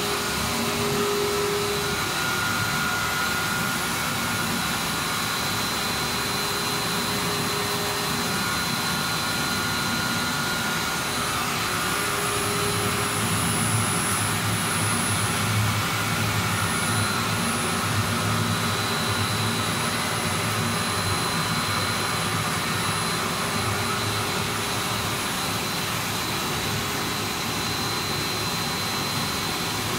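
PVC profile extrusion line running: a steady machine hiss and drone with several thin whining tones, some fading in and out.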